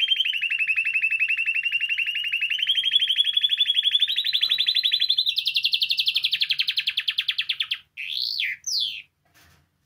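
Spanish timbrado canary singing a long, fast rolling trill that climbs slowly in pitch and steps up higher about five seconds in. It breaks off nearly eight seconds in with two short swooping notes, then stops.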